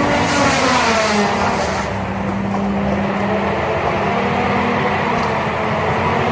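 Heavy machine's engine running under load, its pitch dropping about half a second in and then holding steady, with a rushing hiss over it for the first two seconds.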